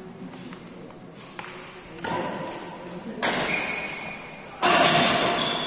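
Badminton racket strikes on a shuttlecock, echoing in a large hall: three sharp hits a little over a second apart, the last the loudest.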